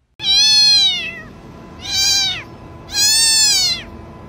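A cat meowing loudly: three long meows about a second apart, each rising and then falling in pitch.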